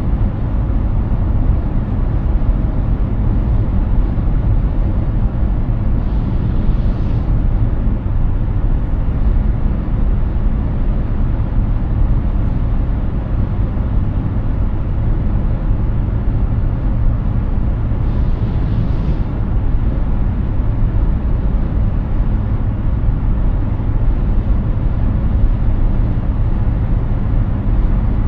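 Steady tyre roar and wind rumble of a Hyundai Ioniq 6 cruising at highway speed, with no engine note because the car is electric. Two brief hisses stand out faintly, about 7 and 19 seconds in.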